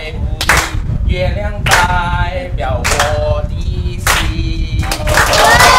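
Hand clapping in a slow, steady beat, about once a second, with a voice singing between the claps. Near the end, music with long sustained tones comes in louder.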